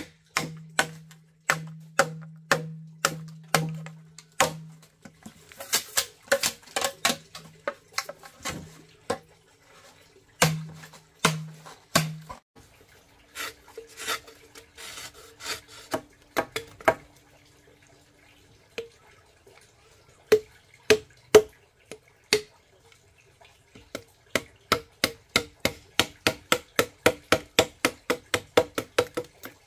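Repeated sharp strikes on wood, about two a second, with a low hollow ring under the first dozen or so. After a few scattered hits in the middle, a quicker run of about three strikes a second closes the window.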